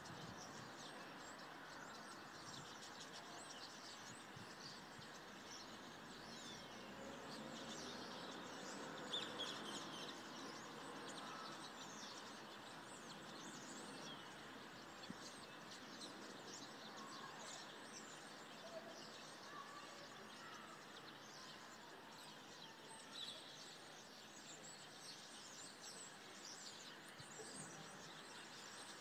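A faint, continuous chorus of many birds chirping and calling at once, over a steady background hiss.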